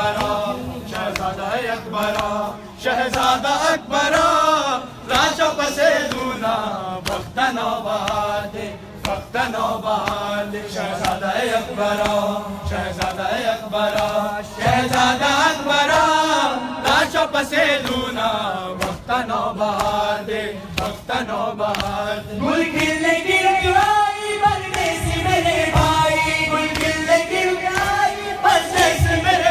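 Men's voices chanting an Urdu noha, a Shia lament for Imam Hussain, together as a group, with sharp slaps of hands on chests (matam) cutting through the chant. About two-thirds of the way through the melody moves higher.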